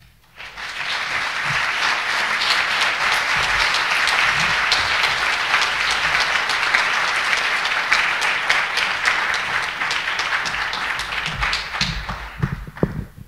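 Audience applauding: a dense round of clapping that starts almost at once and dies away near the end.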